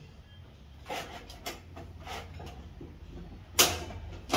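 Front wire guard of a Hatari stand fan being handled and fitted onto the fan: a series of short rubs and light clicks, with a sharp click about three and a half seconds in and another near the end.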